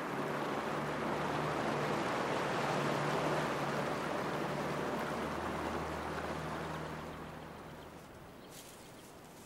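Land Rover Defender driving through shallow floodwater: a steady rush of splashing water over a low engine drone, fading away about eight seconds in.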